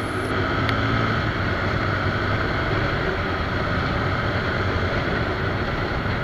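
Suzuki Gixxer SF 250 motorcycle being ridden at about 60–75 km/h and picking up speed: its single-cylinder engine runs under steady wind and road noise.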